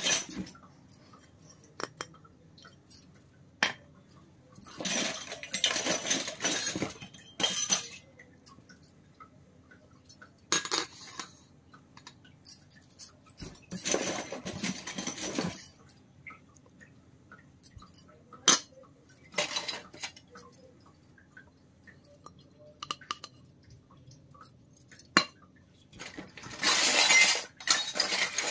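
Miniature stainless steel toy utensils being handled and set down on a wooden table: sharp clinks and taps now and then, between stretches of scraping and rustling a second or two long.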